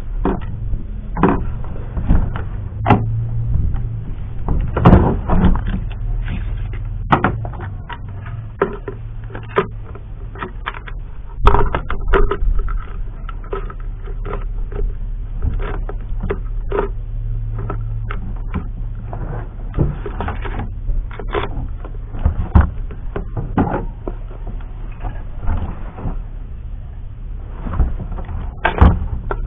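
Irregular clicks, taps and knocks of hands handling an airsoft M4 rifle and fastening a detachable battery box to its rail with screws and nuts, over a steady low hum.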